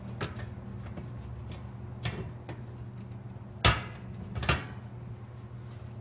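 Parts of a microwave door clicking and knocking as they are handled and fitted together: a few light clicks, then two sharp knocks about two-thirds of the way through, over a steady low hum.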